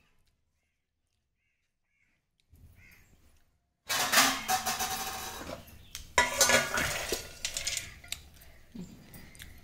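Silent at first, then from about four seconds in a loud metallic clatter and rattle as an aluminium pressure cooker is handled and tipped, and a panful of fresh popcorn is poured out onto a steel plate.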